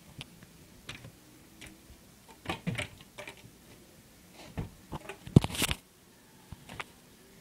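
Scattered crinkling rustles and knocks in two bursts, the loudest a sharp knock about five and a half seconds in.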